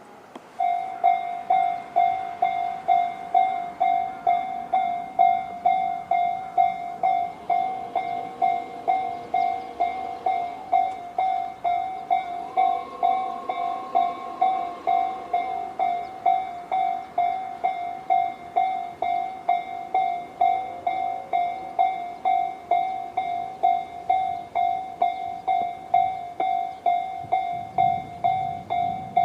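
Japanese railway level-crossing alarm, the Tobu 'sound C' electronic crossing bell, switching on about half a second in and then ringing steadily at about two dings a second: the crossing has been triggered by an approaching train.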